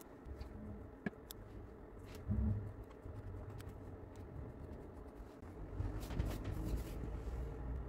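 Faint handling sounds of a clear plastic quilting ruler and layered towel fabric being moved by hand: light clicks and taps, a short low thump a little over two seconds in, and a soft rustle near the end, over a low steady hum.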